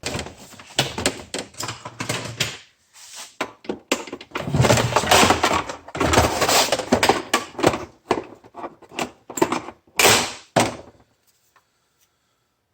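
Plastic casing of a FoodSaver vacuum sealer being handled and worked apart, a busy run of knocks and clatters that stops about two seconds before the end.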